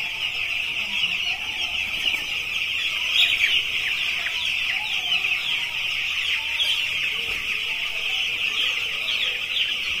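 A flock of ten-day-old broiler chicks peeping continuously: a dense chorus of many overlapping high, short, falling cheeps.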